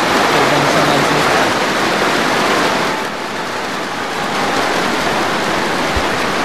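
Arena crowd cheering and applauding after a point, a dense steady wash of clapping and voices that drops slightly about three seconds in.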